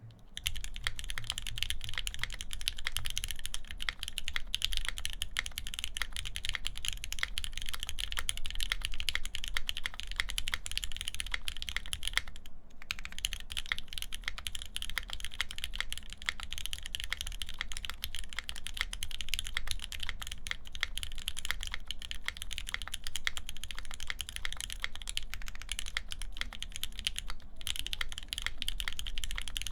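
Continuous fast typing on a wilba.tech Thermal mechanical keyboard with lubed Gateron Ink linear switches in a full aluminum plate, under GMK keycaps: a dense stream of keystrokes that pauses briefly twice.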